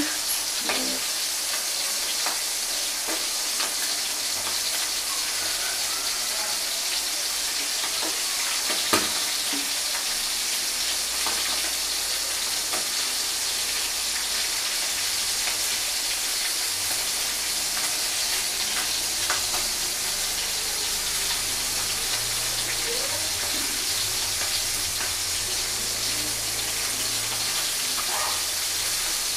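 Pieces of gar fish deep-frying in a pan of oil: a steady sizzle, with a single sharp knock about nine seconds in.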